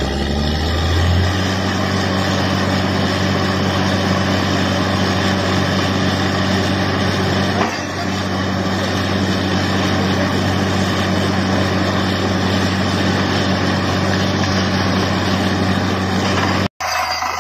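Truck-mounted borewell drilling rig at work: a steady, loud heavy-engine drone with a dense rushing noise over it as the rig drills and blows dust out of the hole. It cuts out for an instant near the end.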